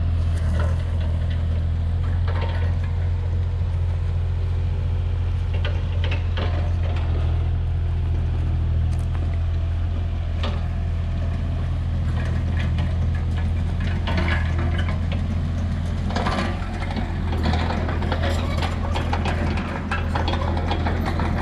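Backhoe's engine running steadily at idle, a low even drone, with scattered clicks and clanks over it.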